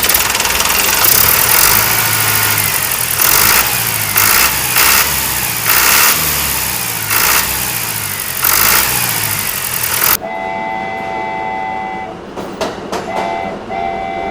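An engine running loudly with a rhythmic low throb, which cuts off suddenly about ten seconds in. After it, steady high horn-like tones sound three times, in one long and two shorter stretches.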